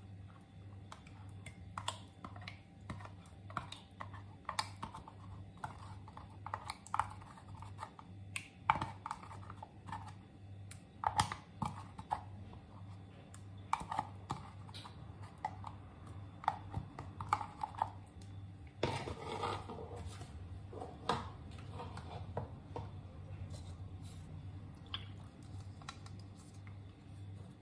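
Scattered light clicks and taps of plastic ingredient cups handled against a glass mixing bowl as ingredients go in, over a low steady hum. A longer rustling scrape comes about 19 seconds in.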